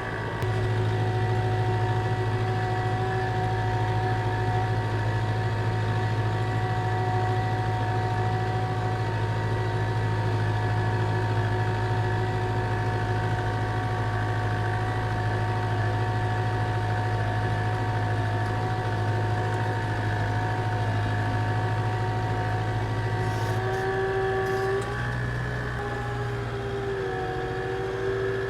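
Tractor engine running steadily under load while pulling a grass slitter and rake across a field. About three-quarters of the way through, the engine note shifts slightly.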